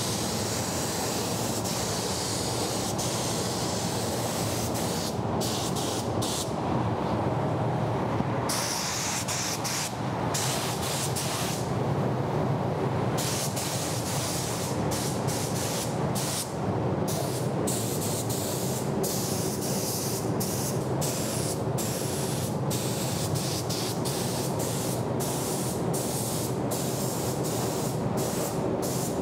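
Gravity-feed paint spray gun hissing as paint is sprayed, in long passes for the first several seconds and then in many short trigger bursts. Underneath runs the steady rumble of the spray booth's air flow.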